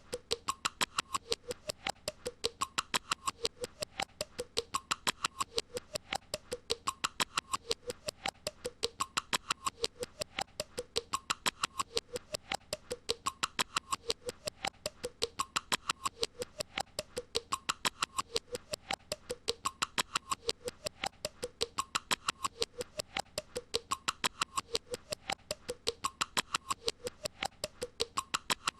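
A short squeaky, clicking sound effect looped over and over, with the same rising-and-falling pattern repeating about every two seconds.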